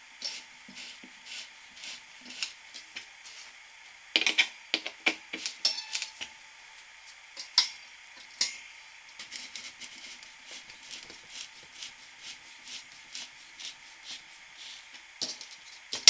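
Hand screwdriver driving drywall screws with washers through a mini-fridge's wire-and-tube condenser coil into the cabinet: irregular metal clicks and rattles, with a quick run of them about four seconds in and again near the end.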